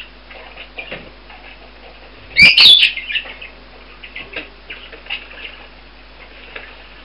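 A budgerigar flock chirping softly and intermittently, with one loud wavering call lasting about half a second about two and a half seconds in.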